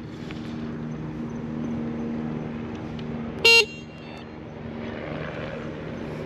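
A single short, loud horn beep about three and a half seconds in, over the steady road noise and low hum of a ride on an electric scooter.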